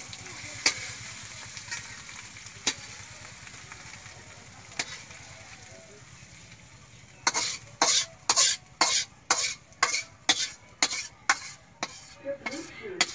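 Egg masala curry frying in a metal wok, with a soft sizzle and an occasional tap of the spatula. From about seven seconds in comes a quick run of metal spatula scrapes against the wok, about two a second, as the curry is scraped out.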